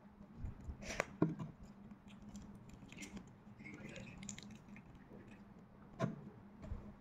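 Faint clicks and small crackles of fingers picking at a boiled balut eggshell, with a few sharper clicks about one, three and six seconds in.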